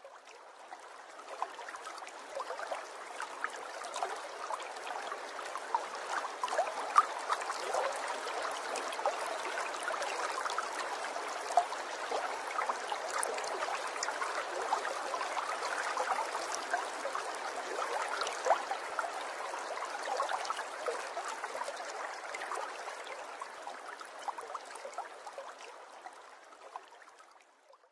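Bubbling, trickling water sound effect with many small pops, fading in over the first couple of seconds and fading out near the end.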